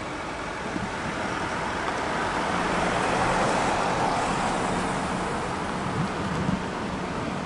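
Road traffic noise: a steady rush of vehicles with a low engine hum, swelling towards the middle and then easing off, with a couple of faint knocks near the end.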